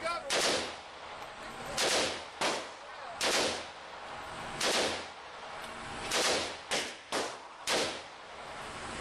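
Gunshots from firearms at a shooting range: about nine single shots at uneven intervals, roughly half a second to a second and a half apart, each ringing out briefly.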